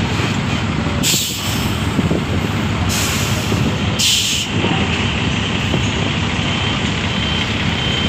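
A coach bus's diesel engine running as it pulls past close by, with three short bursts of air hiss from its air brakes at about one, three and four seconds in.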